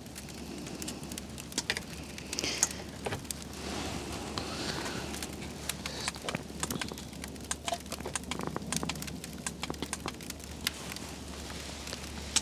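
Wood campfire crackling, with many sharp irregular pops and snaps over a faint steady low hum.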